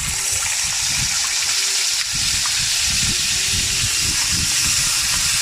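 Marinated pork chops frying in hot olive oil in a small pan: a loud, steady sizzle.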